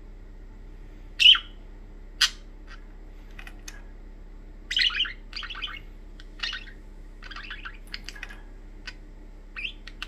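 Pet budgerigars chirping in short calls. The loudest comes about a second in, and there is a quick run of chattering chirps around the middle.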